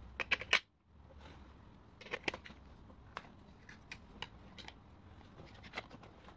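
AA batteries being pressed into the spring contacts of a plastic RC transmitter's battery compartment: a scattering of light clicks and plastic rattles, with the battery cover clicking shut near the end.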